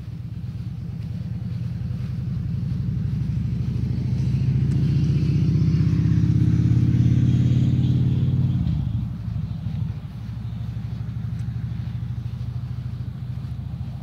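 A motor vehicle's engine running and growing louder, then falling in pitch and level about nine seconds in as it goes past, with a lower, steady engine sound carrying on after.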